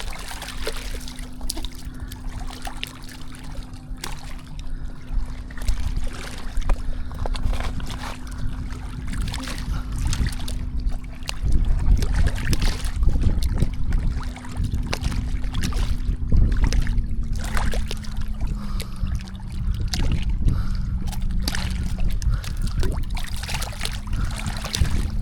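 Water splashing and dripping with wind rumbling on the microphone, over a steady low hum that drops slightly in pitch about two-thirds of the way through.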